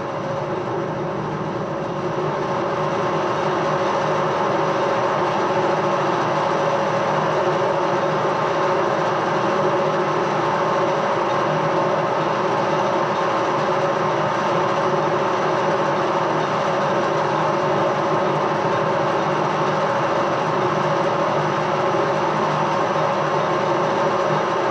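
Edgwick lathe running under power on a thread-cutting pass: a steady mechanical hum of motor and gearing with a steady whine, building slightly over the first few seconds and then holding even.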